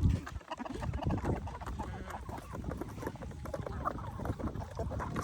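Chickens clucking and pecking feed from a wooden trough, with many quick taps throughout. A low thump sounds right at the start.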